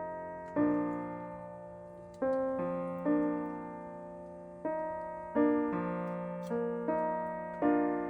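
Background music: slow piano, chords or notes struck about once a second and left to fade.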